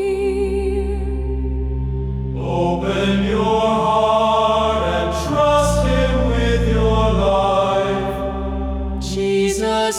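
Choral worship music: a choir holding long sustained chords over a deep held bass note. A single wavering held note comes first, then the texture fills out with a fuller, brighter chord about two and a half seconds in.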